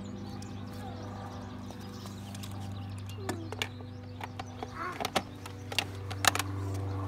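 Scattered clicks and knocks of a plastic toy wrench working at the plastic wheel of a ride-on toy car, starting about halfway through, with the sharpest clicks near the end. A steady low hum runs underneath.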